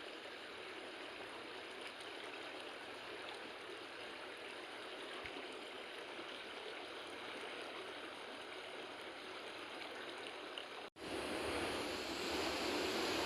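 Rushing water of a swift mountain river, a steady hiss. It cuts out for an instant near the end and comes back louder.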